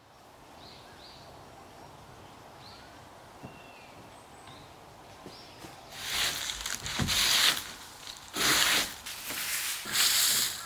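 Faint bird chirps over quiet outdoor ambience, then from about six seconds in, several loud bursts of dry fallen leaves rustling and crunching.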